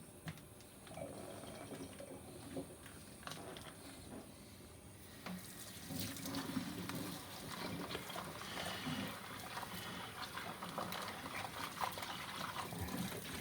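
Kitchen tap running into a sink, the water getting louder about five seconds in, with a few light knocks.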